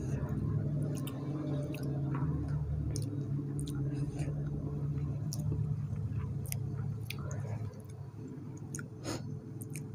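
Close-up mouth sounds of a person chewing, with many small wet clicks and smacks, and soft squishing as fried mackerel is pulled apart by hand. A steady low hum runs underneath.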